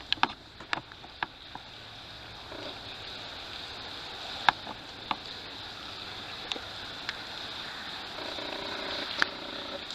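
Water dripping from a tunnel roof: single drops landing every second or so, each a sharp plink, over a steady hiss.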